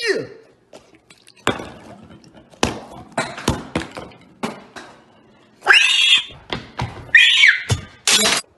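Cartoon sound effects: a quick falling whistle-like glide at the start, then a string of sharp thuds and knocks, with two short high squeals about six and seven seconds in.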